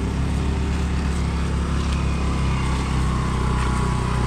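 Small motor-scooter engine running steadily at low speed, a low, even drone.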